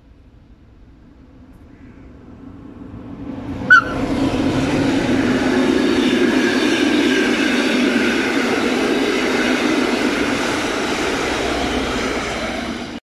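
Rhaetian Railway locomotive-hauled passenger train approaching and passing close by. The rumble rises, and a brief sharp high note comes about four seconds in as the locomotive goes by. Then comes the steady rumble and wheel noise of the passing coaches, which cuts off suddenly near the end.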